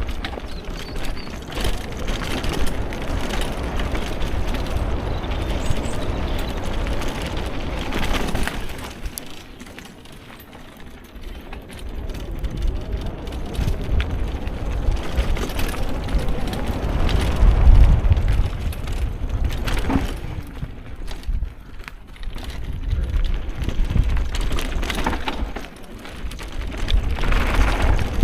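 Vehicle ride over a forest track: an uneven rumbling noise that swells and drops, dipping about a third of the way in and loudest a little past the middle.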